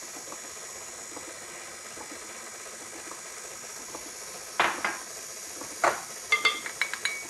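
Stand mixer running steadily as its paddle beats pumpkin bread batter in a glass bowl. Over the last three seconds a measuring cup clinks against the bowl several times, ending in a quick run of ringing taps as dry ingredients are added.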